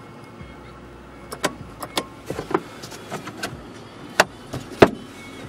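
Mazda 3's engine idling, heard as a low steady hum inside the cabin, under scattered sharp clicks and knocks from the overhead interior controls being handled. The loudest knocks come a little past four seconds in and again just before five.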